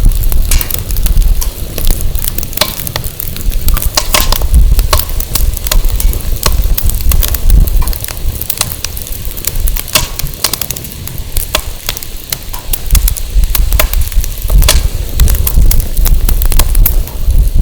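Firewood burning in an open fire pit, crackling steadily with many sharp pops and snaps, over a gusty low rumble of wind on the microphone.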